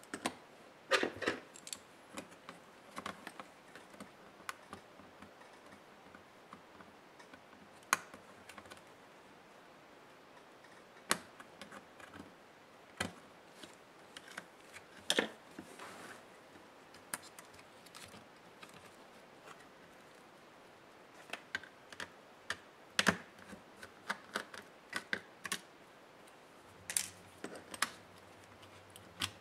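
Irregular small clicks and taps of plastic and metal as laptop parts and tools are handled during disassembly, with scattered louder knocks among quieter ticks.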